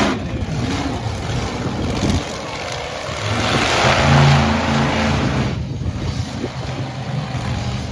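Monster truck engine running hard and revving as the truck turns and drives across the dirt, swelling loudest about four seconds in, then easing a little.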